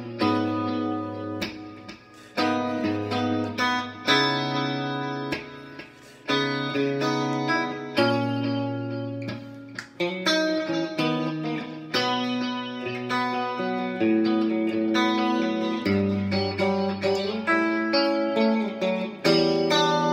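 Electric guitar played solo with a clean tone: chords and single notes picked and left to ring and fade, a new chord struck about every one to two seconds.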